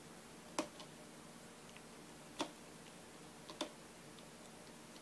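Screwdriver working the tang screw that holds the buttstock of a Marlin 336 lever-action rifle, giving three sharp metal clicks a second or two apart with a few fainter ticks between.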